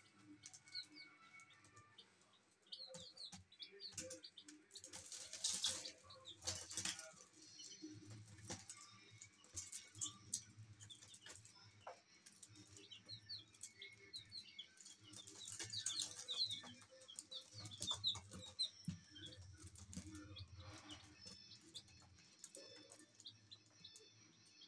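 Baby chickens peeping: many short, high chirps, overlapping without pause. A few louder bursts of rustling noise come in, the first about five seconds in.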